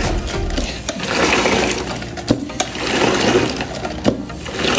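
Spin mop being plunged up and down in the washing side of a spin-mop bucket, its mop head spinning and churning soapy water, in uneven surges with a few sharp plastic clicks from the spinning mechanism.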